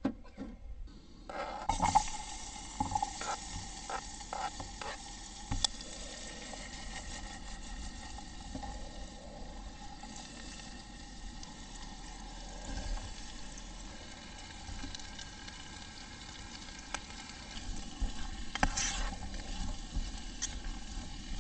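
Diced onion and zucchini frying in a small aluminium camp pot, a steady sizzle that starts about a second and a half in, with a spoon stirring and clicking against the pot.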